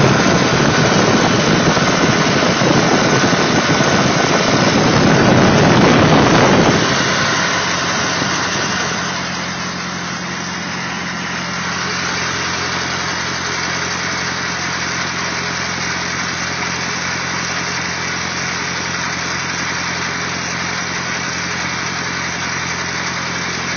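Willys CJ2A Jeep's Go-Devil flathead four-cylinder engine running after a fresh tune-up. It is louder and rougher for the first seven seconds, then drops suddenly to a steady idle.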